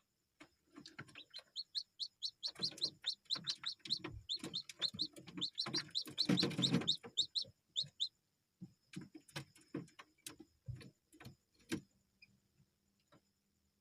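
Village chicks peeping in a quick run of short high cheeps, about five a second, with many sharp taps and knocks among them and a brief rustle about six seconds in. The cheeping stops about eight seconds in and the taps carry on.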